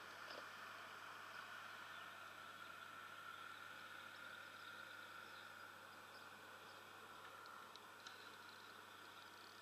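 Near silence: a faint steady hiss with a faint even drone, and a couple of faint clicks near the end.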